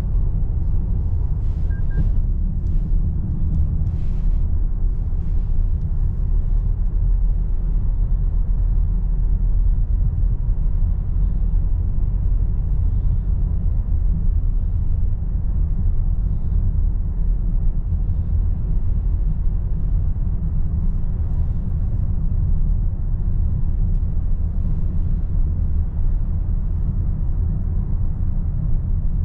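Steady low road and engine rumble heard inside a Toyota Corolla's cabin while it cruises at about 36 mph.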